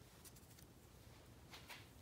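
Near silence: room tone with a few faint small clicks, and a brief light scrape about one and a half seconds in.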